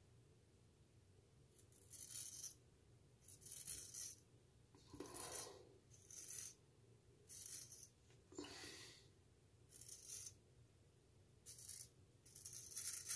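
Straight razor scraping stubble through shaving lather: a series of short, hissing strokes, about one a second.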